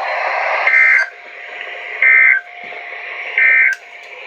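Three short, loud bursts of Emergency Alert System end-of-message data tones, the buzzy two-tone digital code, sent about a second and a half apart over a NOAA Weather Radio broadcast. Static hiss from weak reception runs underneath and between the bursts.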